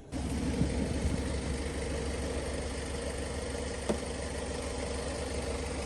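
Vehicle engine idling steadily with a deep, even hum; there is one short click about four seconds in.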